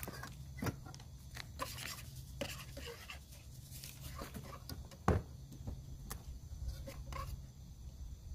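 Scattered small clicks, taps and scrapes of a utensil and hands working chopped vegetables in a steel mixing bowl, with one sharper knock about five seconds in, over a steady low hum.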